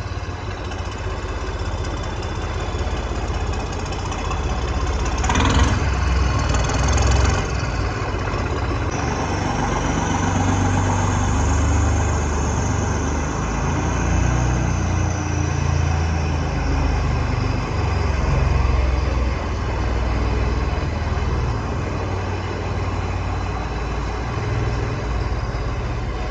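A vehicle engine running steadily at low revs, with a brief louder rush about five seconds in and a faint high whine for several seconds in the middle.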